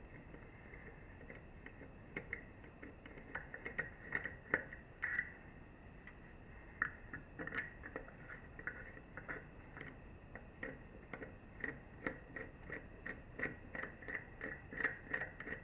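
Half-inch drive ratchet clicking in short runs as the rear wheel's lug bolts are worked loose. The clicks are faint and scattered at first, then come in quicker, steadier runs over the second half.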